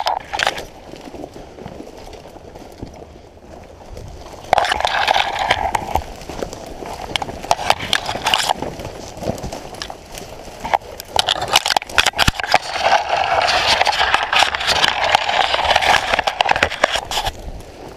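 Dry brush, twigs and dead leaves crackling and scraping as someone pushes through thick undergrowth on foot, with crunching steps in leaf litter. The rustling comes in bursts, loudest and longest in the second half.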